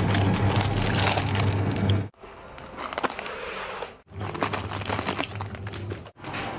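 Plastic food packets crinkling and rustling as they are handled, over a steady low hum. The sound breaks off abruptly every two seconds or so and starts again.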